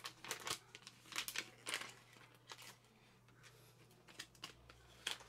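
Small clear plastic bag crinkling as it is handled and torn open by hand: a dense run of short crackles over the first two and a half seconds, then a few scattered ones.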